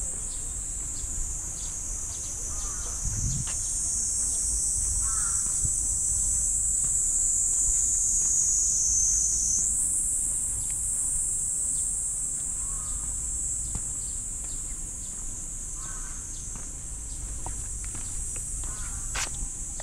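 A dense insect chorus buzzing steadily at a high pitch, shifting pitch a little twice, with a bird giving short harsh calls every few seconds. Faint footsteps on a paved path tick along underneath.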